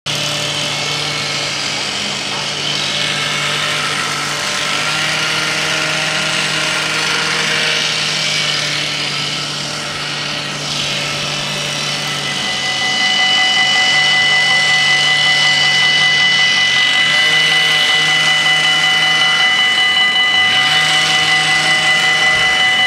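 Road traffic going by at a level crossing. About halfway through, the crossing's electronic warning bells start ringing, a steady rapid ringing that keeps on as the red lights flash: the warning that the barriers are about to lower for an approaching train.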